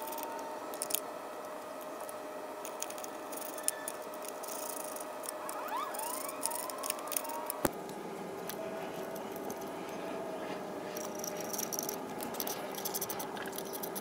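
Scattered light clicks and clinks of bolts, washers and hand tools as the recoil cover is bolted back onto a lawn mower engine. Underneath runs a steady faint hum with a few short chirps.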